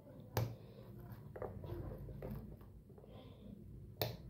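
Two sharp plastic clicks, one about half a second in and a louder one near the end, with a fainter one between, from a plug being pulled out and pushed into another socket and rocker switches being pressed on a homemade extension board; light handling rustle between them.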